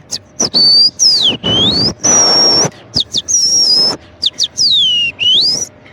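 A man imitating a weaver bird's call by mouth. It comes as a series of high whistled notes: short sharp chips, held notes, and swoops that dip down and climb back up. About two seconds in there is a half-second rasping hiss, and it ends with two dipping swoops.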